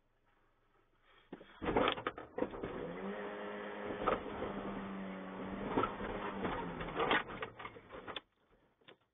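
An elephant ramming a pickup truck's hood: several sharp bangs and crunches of sheet metal being crumpled. Under them, an engine revs up, holds steady, then drops away.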